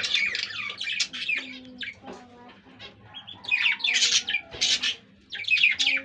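Budgerigars chattering: rapid high chirps and warbles in bursts, busiest near the start, around the middle and at the end.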